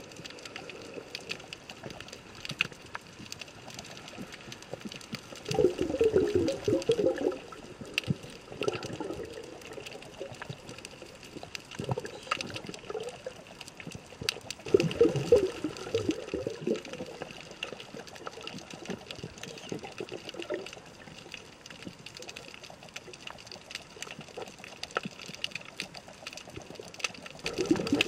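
Underwater water noise heard by a submerged camera: a steady wash with scattered faint clicks, and a few louder bouts of gurgling, bubbling water, about six seconds in, around fifteen seconds and again at the end.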